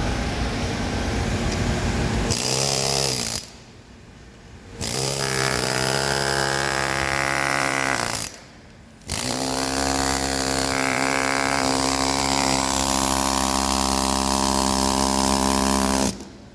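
Pneumatic air hammer with a metal tip running in three rapid-fire runs, a short one, then about three and a half seconds, then about seven seconds, each cutting off sharply, as it drives caulking rope into a filter press plate's caulking groove. A steady hum comes before the first run.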